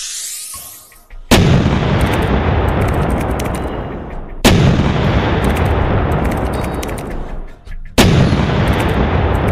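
Three heavy cinematic impact hits, about three seconds apart, each a sudden boom that dies away in a long, deep rumble.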